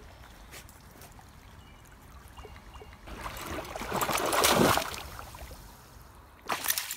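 Water splashing and trickling. It swells into a loud stretch of sloshing about three seconds in and dies down again, with a second short splash near the end.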